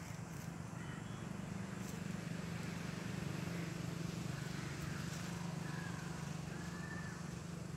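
A steady low engine drone that swells toward the middle and then eases off, with a few faint bird chirps over it.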